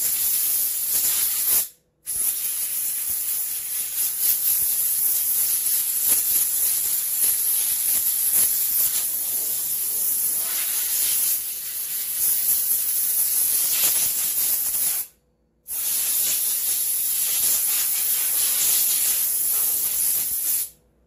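Compressed-air blow gun hissing steadily as it blows dust and crud out of a chainsaw. It comes in three long blasts, broken by two brief pauses about two seconds in and about fifteen seconds in.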